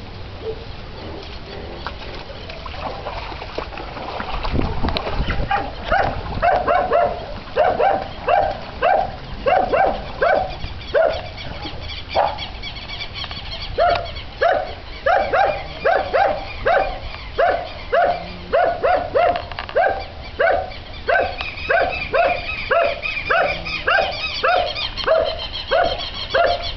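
An animal calling over and over, short falling calls about two a second, starting a few seconds in and pausing briefly near the middle, with a higher call joining late on.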